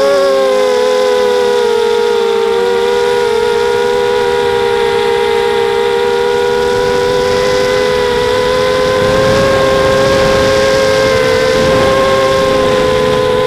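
FPV multirotor drone's electric motors and propellers whining steadily in flight, several close pitches weaving against each other. A rushing noise grows about nine seconds in.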